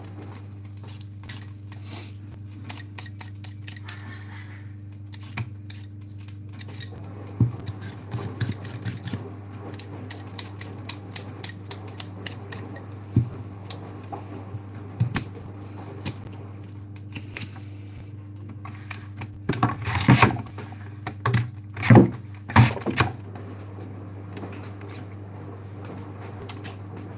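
Potatoes being peeled with a handheld vegetable peeler: a run of quick, light scraping strokes and clicks, with a few louder scrapes and knocks about twenty and twenty-two seconds in. A steady low hum runs underneath.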